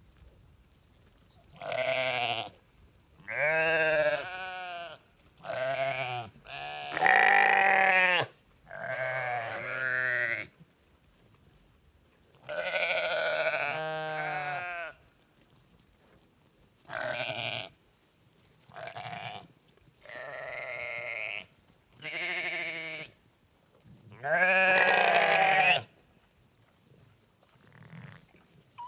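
Sheep bleating: about a dozen separate baas, each one to two seconds long with a wavering, quavering pitch, separated by short pauses.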